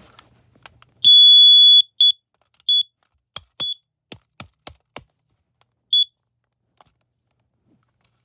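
Carbon monoxide alarm's piezo beeper sounding one long, loud, high beep, then several short chirps at the same pitch, with a few sharp clicks in between. The owner takes this signal to mean the alarm has reached its 10-year end of life.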